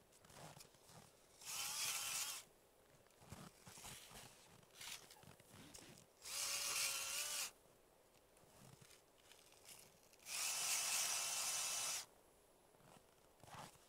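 Ice auger boring into thick lake ice in three bursts of one to two seconds each, a grinding hiss with a wavering whine in it, starting and stopping abruptly.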